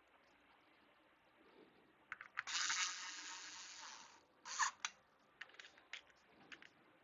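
Hands handling small computer parts. About two seconds in there is a rasping scrape lasting about a second and a half. A sharp clack follows, then a few light clicks.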